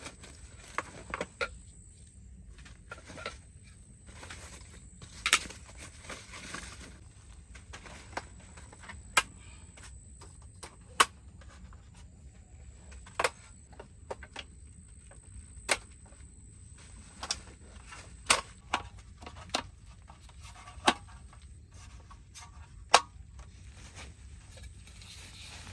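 Scattered sharp clicks and light knocks, one every second or two at irregular spacing, over a steady low rumble and a faint high-pitched whine.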